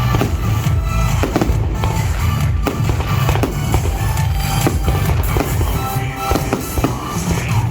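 Fireworks bursting in quick succession, many sharp bangs over a low rumble, mixed with loud show music playing along.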